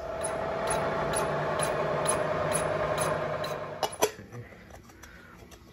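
Vertical milling machine running, its cutter taking a final pass to widen the opening of an exhaust flange: a steady whirr with a faint tick about twice a second. It stops just before 4 s and is followed by a few sharp metal clinks as the flange is tried over the pipe.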